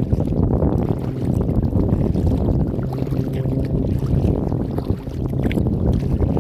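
Wind buffeting the microphone of a bow-mounted phone on a kayak under way, a steady low rumble, with a few faint splashes of water now and then.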